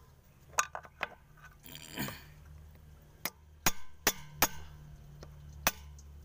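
Sharp metal-on-metal clinks, about seven irregular strikes with a pause between about one and three seconds in, as a steel rod is knocked against the bearing to drive it out of a truck gearbox's oil-seal housing. A brief scrape comes about two seconds in.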